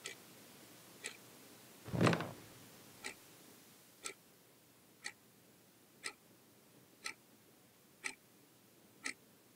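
A clock ticking steadily, about one tick a second, with one brief, louder noise about two seconds in.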